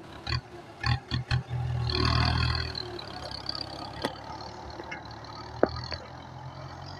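Kubota M9540 tractor's diesel engine running under ploughing load, with a few short surges in the first second and a louder stretch about two seconds in before it settles to a steady run. Two sharp knocks sound later on.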